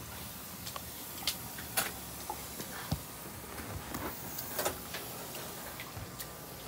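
Bare feet stepping through shallow floodwater on a hard floor: a scatter of short soft clicks and light splashes at irregular intervals, about one or two a second, over a low steady background hiss.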